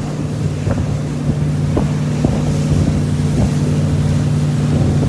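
Malibu wake boat's inboard engine running at a steady pitch while under way, with wind buffeting the microphone and a few light knocks.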